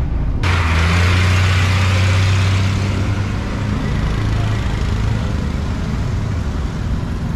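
Road traffic passing close by: engines of an auto-rickshaw, a motor scooter and a car running, over tyre and road noise. A steady low engine hum is strongest in the first few seconds, then eases off.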